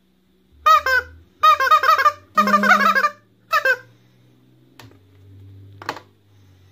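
Yellow rubber chicken squeezed by hand, letting out four loud, wavering squawks one after another, followed by a light knock near the end.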